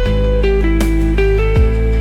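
Background music led by a guitar, with a melody moving in steps over a steady bass note.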